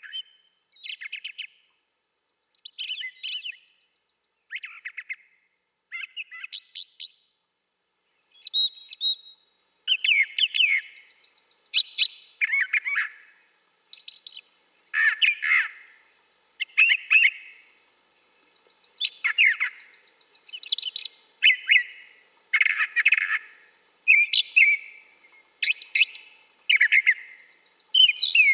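Brown thrasher singing: a long run of short, varied phrases with brief pauses between them. The phrases are fainter for the first several seconds and louder from about ten seconds in.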